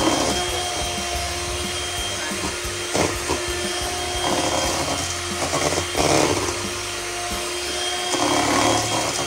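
Electric hand mixer running steadily, its beaters whirring through a batter of creamed butter, sugar and eggs.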